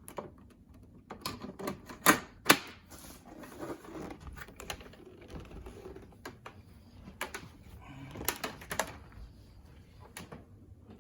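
Plastic clicks and knocks as the filter and front cover of a Therapure TTP240 air purifier are fitted back on. There are two sharp snaps about two seconds in and a few more near the end.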